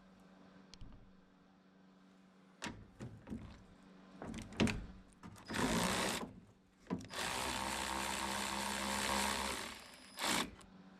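Handheld power tool running in two bursts, a short one and then a steady one of about three seconds, with a few sharp clicks and knocks before it and a brief burst near the end.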